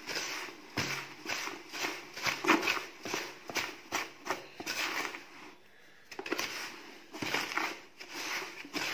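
Brass shavings rustling and scraping in a plastic bucket as a magnetic pickup tool is stirred through them in repeated strokes, drawing out stray steel fragments. The strokes pause briefly about five and a half seconds in.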